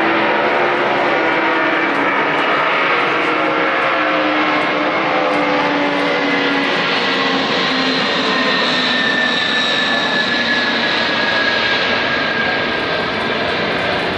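Airbus aircraft engines running loud: a steady rush with several whining tones that slowly fall in pitch. The sound cuts off suddenly at the end.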